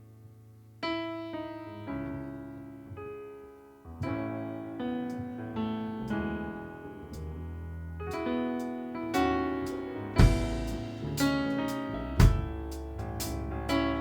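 Electric piano playing a slow, chordal instrumental introduction. Drums come in about ten seconds in with about one hit a second.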